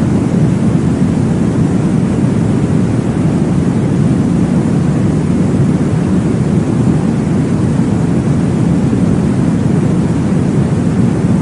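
Steady, deep whooshing noise, heavier in the low end than hiss, played as a womb-style sleep sound for babies. It runs on evenly, with no heartbeat or other beat standing out.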